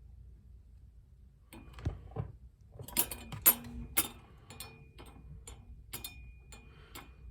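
Rocking dolphins kinetic desk toy ticking as it rocks: sharp clicks with a faint metallic ring, a few scattered ones about one and a half seconds in, then a steady beat of about two a second.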